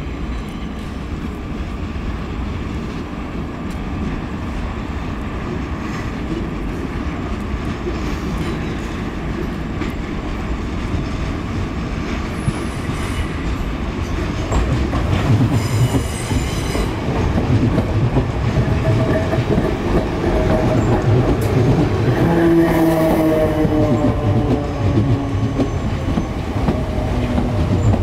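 Electric multiple-unit train running into the station over the pointwork, with wheel clatter on the rails. It gets louder about halfway through, and a whine that falls slightly in pitch sounds over it near the end.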